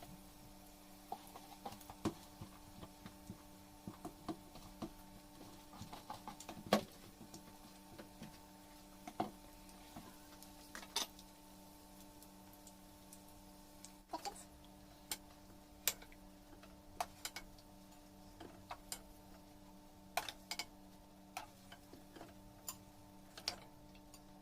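Puff puff dough frying in vegetable oil: faint, irregular crackling pops and clicks, one louder pop about seven seconds in, over a steady low hum.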